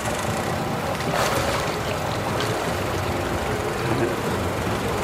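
Engine idling steadily, from the pickup truck waiting with its boat trailer backed into the water, with a couple of brief knocks about a second and two and a half seconds in.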